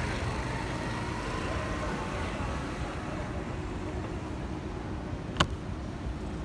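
Street traffic rumble, with a motor scooter passing and fading out over the first couple of seconds. A single sharp click sounds about five seconds in.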